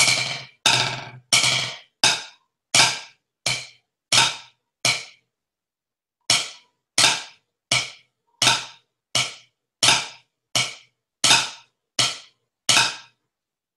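Drumsticks striking a practice pad, playing a snare drum line at 82 beats per minute: single strokes about one to a beat, some of them flams, with a rest of about a bar's length near the middle.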